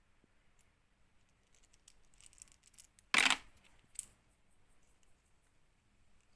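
Small parts of a microwave fan motor being handled while it is taken apart, with light clicks and rustles, one loud sharp snap or clack about three seconds in and a smaller click a second later.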